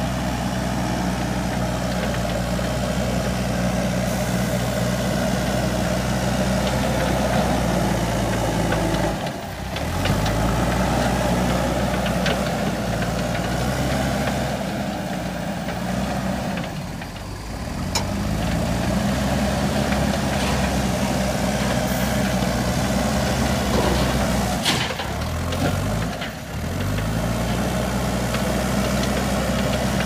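JCB backhoe loader's diesel engine running steadily as the front bucket pushes soil. Its note sags several times and then climbs back up.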